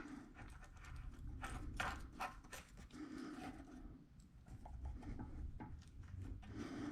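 Faint, irregular clicks and small knocks as the new hose-inlet valve is threaded by hand onto a pressure washer pump, with a few sharper clicks about two seconds in.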